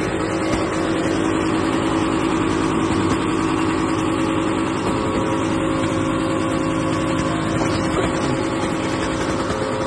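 Old Toyota Hilux on oversized mud tyres, climbing in third gear, its engine held at a steady, unchanging pitch.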